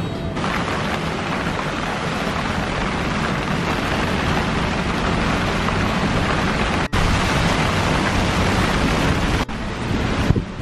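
Tropical-storm wind and rain heard on a sailboat's deck: a dense, steady rushing noise on the microphone. It cuts off abruptly twice, about seven and nine and a half seconds in.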